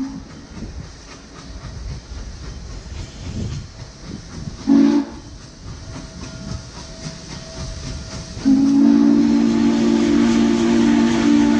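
Norfolk & Western 611's steam whistle, a low chord of several notes, blowing for a grade crossing: the end of a long blast, a short blast about five seconds in, then a long blast from about eight and a half seconds on. Under it, the steam locomotive's rumble as it approaches.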